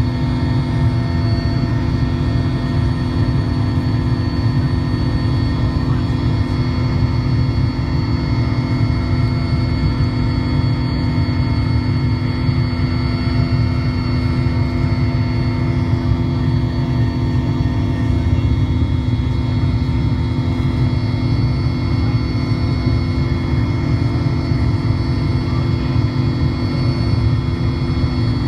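Mil Mi-17 helicopter in flight, heard inside the cabin: the steady, loud drone of its twin turboshaft engines and rotor, a deep rumble under several steady whining tones.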